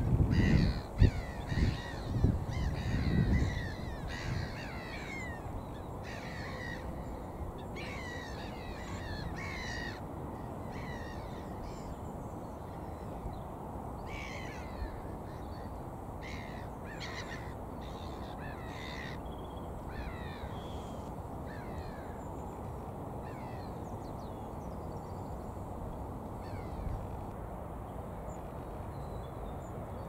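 A flock of gulls calling: many short, harsh, down-slurred calls overlapping through the first third, then scattered calls and only a few near the end. Loud low thuds in the first few seconds, then a steady low rush of background noise.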